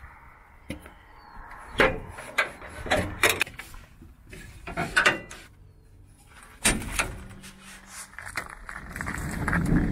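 Scattered knocks, clunks and rustles of hands grabbing and moving wiring and hoses in an RV's generator bay, with several sharp knocks among them.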